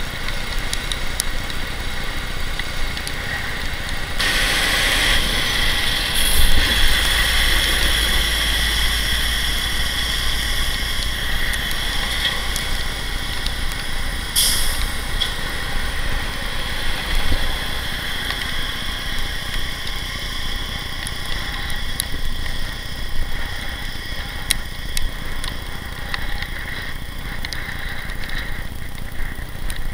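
Riding noise picked up by a bicycle-mounted camera on a highway shoulder: a steady rush of wind and tyre noise with small rattling clicks. A deep rumble of passing traffic runs from about six to fourteen seconds in.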